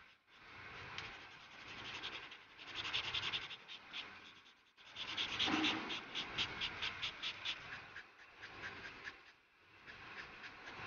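Colouring strokes on paper: a dry, scratchy rubbing in several bursts separated by short pauses. In the middle comes a quick run of about six short back-and-forth strokes a second, the loudest part.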